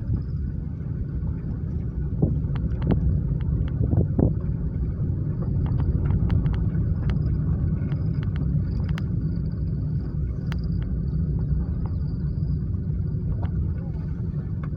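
Car driving: a steady engine and road rumble, with scattered light ticks and knocks.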